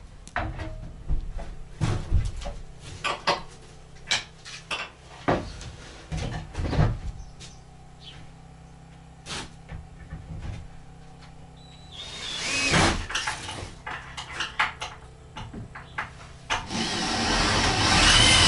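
Scattered, irregular knocks and clatter of tools and materials being handled. A louder steady noise starts near the end.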